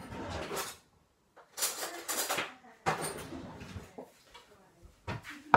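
Kitchen handling noise while coffee is being made: a cupboard opening and closing and things being moved about, in three short noisy bursts.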